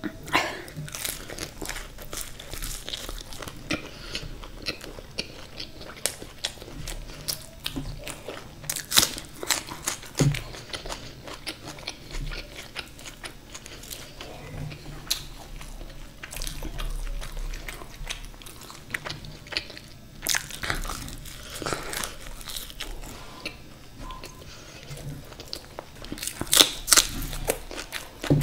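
Close-miked eating: a person chewing and biting luchi scooped with curry and a raw spring onion, with wet chewing and many crisp crunches. Clusters of louder crunches come several times, the loudest near the end.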